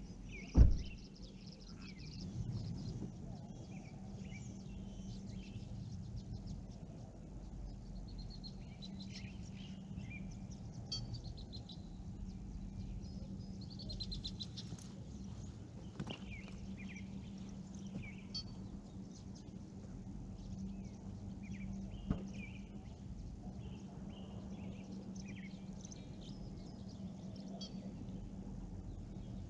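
Small birds chirping and calling over a low steady hum, with a loud thump about half a second in and a sharp click about 22 seconds in.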